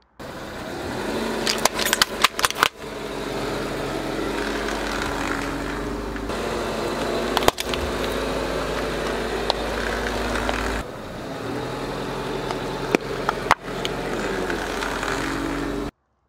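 A car's engine running at low speed as its tyre rolls over items on asphalt, with sharp cracks and pops as they are crushed: a cluster about two seconds in, another about halfway, more near the end. The sound cuts off suddenly just before the end.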